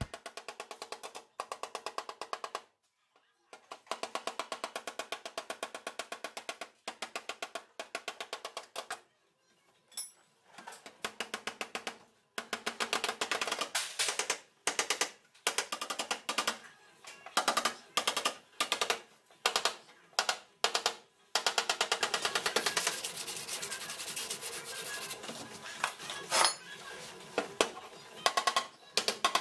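Body hammer tapping out a dent in a car's sheet-metal front fender against a dolly, rapid strikes in bursts with short pauses, the panel ringing under the blows.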